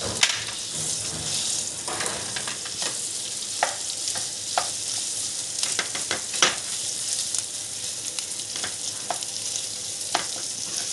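Mashed potato sizzling in hot oil and spices in a non-stick frying pan, stirred and broken up with a spatula. The spatula now and then taps and scrapes against the pan.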